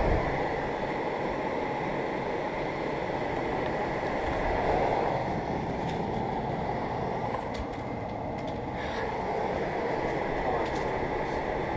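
A 2008 Amana PTAC through-wall air conditioner running in cool mode: a steady rush of air from its fan with a faint, steady high whine.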